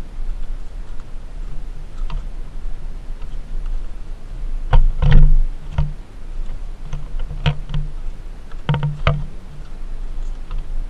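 Footsteps on a bamboo-slat walkway: irregular wooden knocks and clicks from the slats, loudest about halfway through and twice more near the end, over a steady low rumble.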